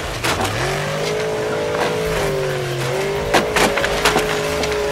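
RC buggy running with a steady engine-like drone while it smashes through stacks of wooden planks. The planks clatter down with several sharp knocks, the loudest cluster between three and four seconds in.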